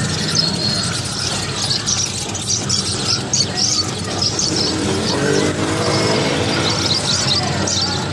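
Many small caged birds chirping together in quick, overlapping high chirps, over a steady low background rumble.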